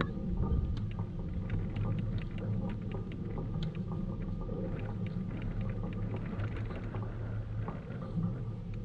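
Tennis rally on an outdoor hard court: racket strikes on the ball come through as a few short knocks over a steady low rumble.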